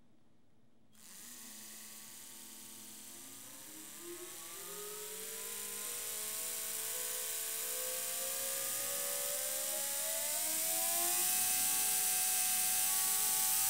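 Small DC motor and plastic gear drive of a Braun Oral-B Professional Care electric toothbrush whining, starting about a second in and rising steadily in pitch and loudness as the supply voltage is turned up. The motor, meant to run on a single low-voltage cell, is being overdriven toward about 12 to 15 volts.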